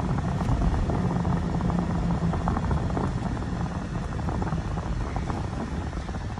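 Road and engine rumble inside a car's cabin while driving, a steady low drone that eases off a little near the end as the car slows for an intersection.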